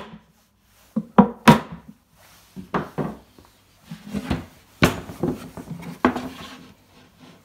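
Two sharp knocks on a wooden block, tapping a metal rosette into a plywood panel. Then the plywood box is handled and turned over, giving irregular thuds and knocks and wood rubbing on wood, with one sharp knock about two-thirds of the way through.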